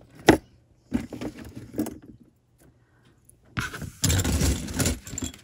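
Hands handling costume jewelry on a cloth-covered table: a sharp tap as a brooch and tag are set down, then, after a pause, about a second and a half of rustling and clattering as the next brooch is picked out.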